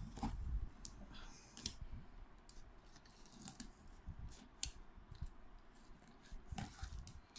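Cutting through the packing on a cardboard box: faint, irregular clicks, snips and scratches of a blade working on tape or strapping.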